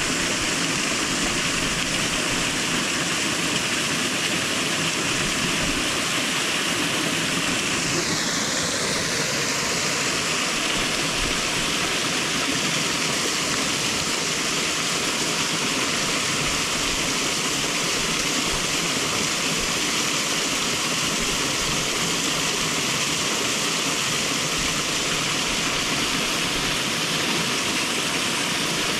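Steady rush of a small waterfall pouring into a mountain-stream plunge pool, with the stream's water running over the rocks below it.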